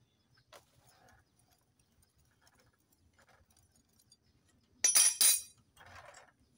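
Metal-on-metal clinking from a T-handle socket wrench working the bolts of a motorcycle engine. There are faint scattered clicks, then two sharp ringing clinks close together about five seconds in.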